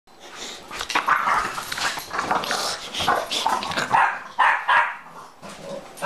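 Small dogs barking and growling in a quick run of short, harsh yaps and snarls, easing off near the end.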